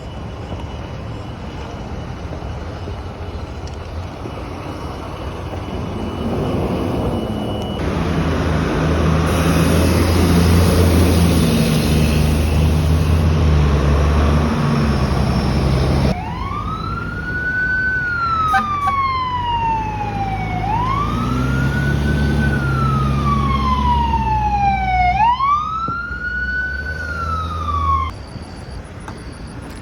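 Emergency vehicles pulling away. A heavy engine runs loud for several seconds, then a siren wails, rising quickly and falling slowly about every four seconds for three cycles, and cuts off near the end.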